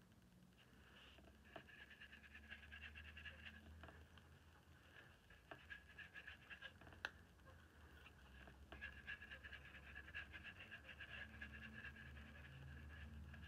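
Faint, rapid panting over a low steady hum, with a few light ticks.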